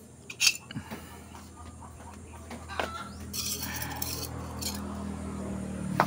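A metal spoon clinking and scraping on floor tiles as cow manure is scooped up. From about three seconds in, a motor vehicle's engine hum grows louder in the background.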